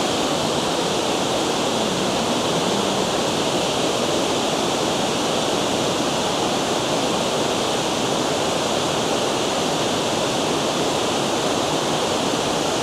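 Water pouring over a spillway, a steady, unbroken rush.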